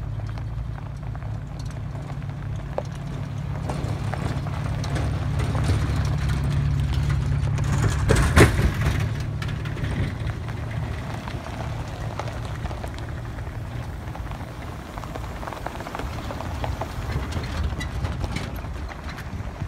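A convoy of Jeep Wranglers rolling slowly past one after another on a gravel trail: engines running low and steady with tyres crunching over the gravel. It grows louder toward a brief sharp noise about eight seconds in, then eases off.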